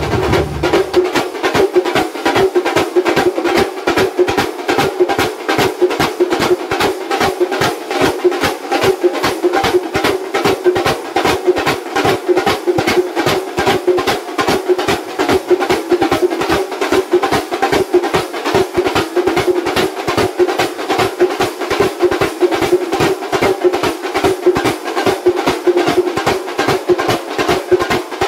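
Thambolam band: many large shallow drums beaten with curved sticks, with small drums and hand cymbals, playing a fast, steady, driving rhythm of several strokes a second.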